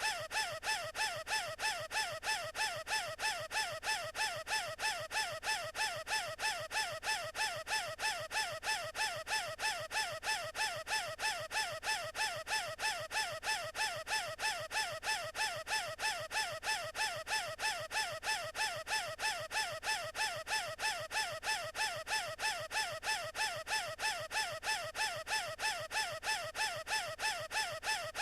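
A cartoon character's squeaky, wheezing gasp for air, looped and repeated evenly about two and a half times a second.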